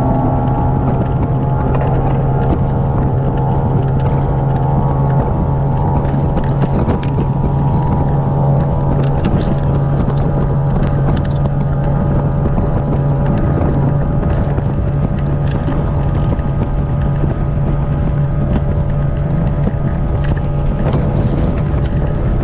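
Fishing boat's outboard motor running steadily at speed, with wind buffeting the microphone.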